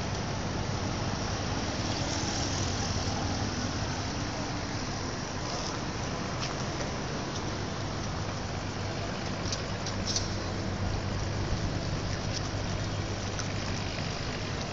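Steady city road traffic noise: a continuous rush of passing cars with a low hum underneath and a few faint clicks in the middle.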